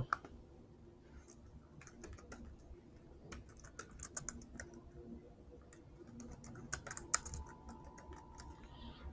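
Faint computer keyboard typing: irregular runs of quick key clicks with short pauses between them.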